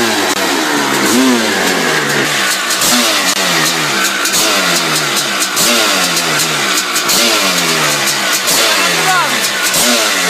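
MTH 650 big-bore two-stroke dirt bike engine running while standing still, revved up and let fall back again and again, about once every second and a half.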